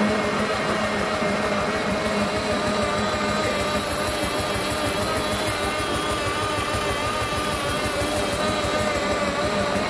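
Pedal-powered smoothie-bike blender running: the spinning bike wheel drives the blades in a Blendtec jar as they blend a berry smoothie, giving a steady whirring drone whose pitch wavers slightly with the pedalling.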